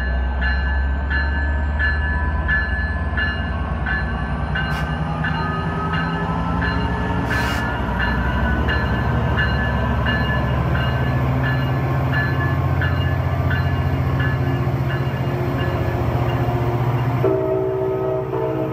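Amtrak F59PHI diesel locomotive running close by and pulling out, its engine drone rising in pitch as it throttles up, with its bell ringing about twice a second. A train horn sounds near the end.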